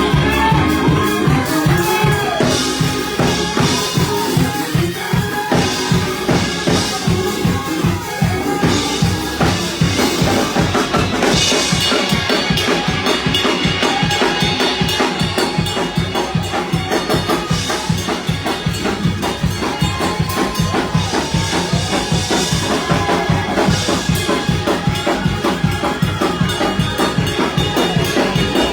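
Fast, driving church shout music: a drum kit pounds a quick, even beat of bass drum and snare, with sustained higher notes carried over it.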